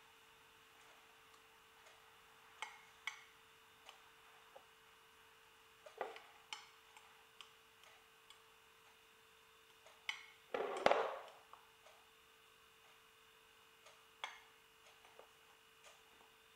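Small spoon clinking and tapping against a glass bowl while stirring flour, in light irregular clicks, with a longer, louder scrape about ten and a half seconds in. A faint steady hum sits underneath.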